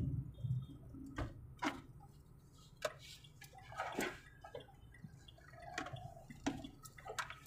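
Low, steady engine and road rumble inside a moving car's cabin, with a handful of sharp, irregularly spaced clicks.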